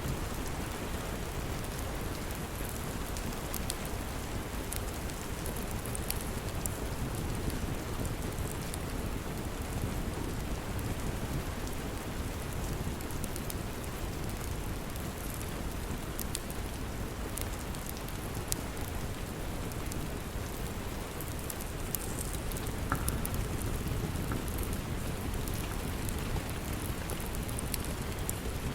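Steady rain falling, with scattered light crackles from a wood fire in a fireplace.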